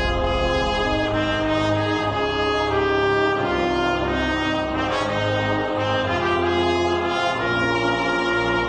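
Brass-led orchestral music playing slow, held notes.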